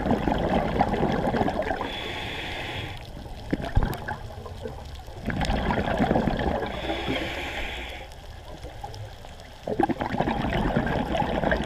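A scuba diver breathing through a regulator underwater: three rushes of exhaled bubbles about five seconds apart, the first two each followed at once by the short hiss of the regulator as the diver breathes in. A single knock about four seconds in.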